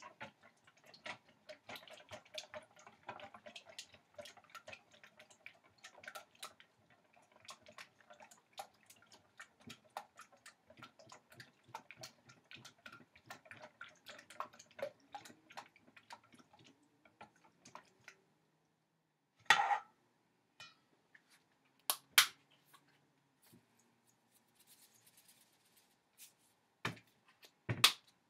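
A whisk beating eggs in a stainless steel mixing bowl: rapid, fast-ticking clicks and scrapes of the wires against the metal. These stop about 18 seconds in, and a few separate sharp knocks follow.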